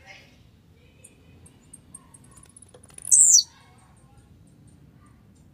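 Blue-black grassquit (tiziu) giving one short, loud, high buzzy song about three seconds in, sliding steeply down in pitch. Faint high chips tick on in the background.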